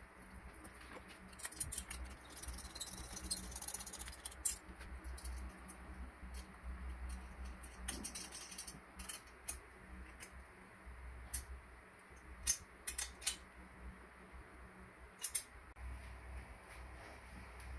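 Small metal parts clicking and clinking at irregular moments as a leaf-spring shackle and its bolts are handled and fitted against a steel frame rail of a model truck, over a faint steady low hum.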